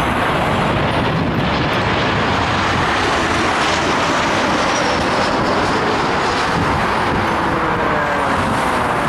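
Jet engines of an SAS Boeing 737 on final approach, passing low overhead: a loud, steady roar, with a faint falling whine in the second half as the aircraft goes by.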